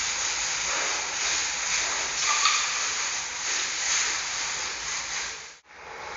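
Steady hissing background noise that drops out for a moment about five and a half seconds in, then resumes.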